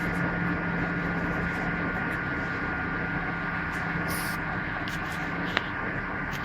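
Bendix 7147A washing machine running mid-cycle: a steady motor hum with a constant high whine, a brief hiss about four seconds in and a single sharp click near the end.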